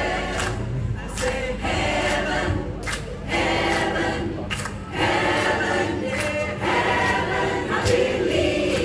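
A choir singing, in sung phrases with short breaks between them.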